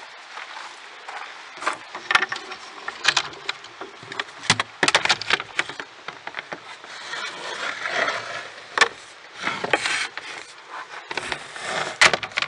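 Wooden trail-register box being opened and the register binder taken out and handled: a run of irregular knocks and clacks with scraping and rustling between them.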